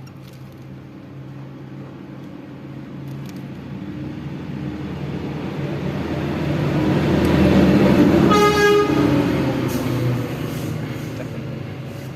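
A motor vehicle passing by: its engine grows louder, peaks about eight seconds in with one short horn honk, then fades away.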